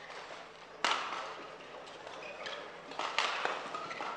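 Badminton rally: racket strings striking a shuttlecock with sharp cracks, one about a second in and a quick cluster about three seconds in, with short squeaks of shoes on the court floor in between.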